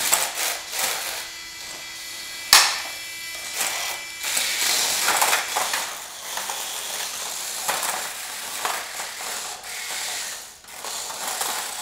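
Hexbug BattleBots remote-control toy robots fighting in their plastic arena: small electric motors and gearboxes whir and buzz under a run of rattling plastic clicks and knocks. A sharp crack about two and a half seconds in is the loudest hit.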